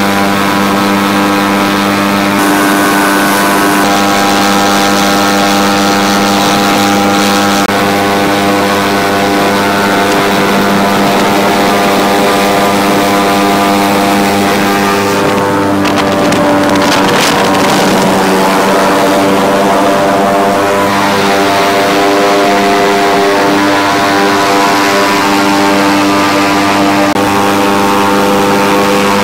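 Airboat's engine and rear air propeller running at a steady cruising speed: a loud, even drone with a rush of air over it, disturbed by a burst of wind noise about halfway through.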